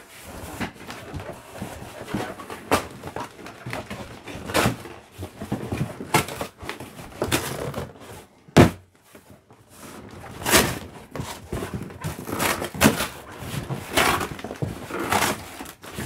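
Large cardboard shipping box being handled and opened by hand: cardboard scraping and rustling, with irregular knocks and thuds on the box, the sharpest about eight and a half seconds in.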